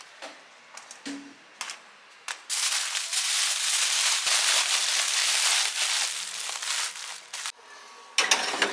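Aluminium foil crinkling loudly as it is folded and wrapped over a baking tray, for about five seconds, after a few light clicks of hands placing food on it.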